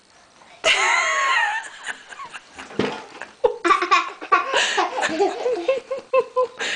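A young child's high-pitched squeal about half a second in, followed from about halfway by a run of rhythmic giggling laughter.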